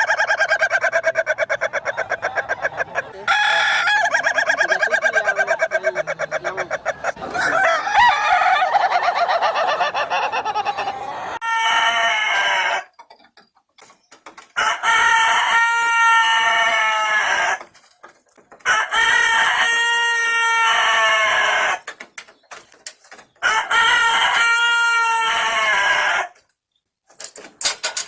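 Roosters crowing in long, drawn-out, unusual calls: a long stuttering call for the first ten seconds or so, then three separate crows of about three seconds each, with sudden silences between them.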